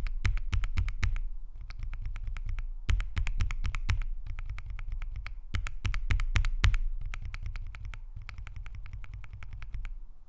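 Mechanical keyboard with Kailh Box Strawberry Ice Cream linear switches being typed on: runs of quick keystroke clicks broken by short pauses, thinning out near the end.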